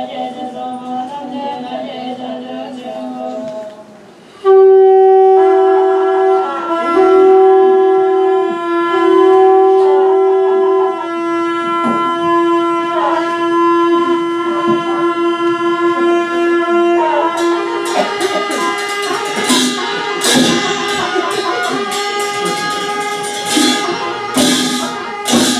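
Field recording of a monastery prayer ritual: nuns chanting, then about four seconds in, loud ritual horns cut in with held blasts, broken three times and then sustained. Drums and other percussion join in past the middle.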